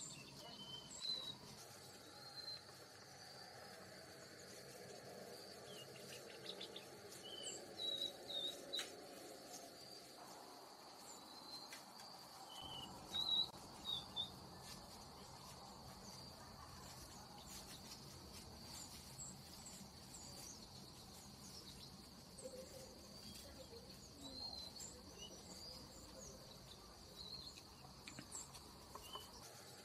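Outdoor ambience: a steady high insect trill, cricket-like, with scattered short bird chirps; the loudest chirps come about 13 to 14 seconds in.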